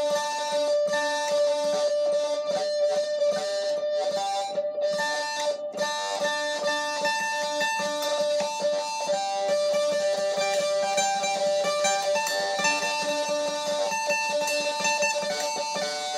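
Solo guitar played with fast picked notes over one note left ringing at a steady pitch.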